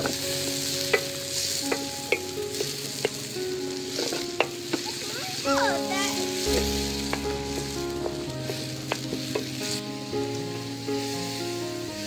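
Diced tomatoes and green peppers sizzling in a pan over a wood fire, stirred with a wooden spoon that scrapes and knocks against the pan repeatedly.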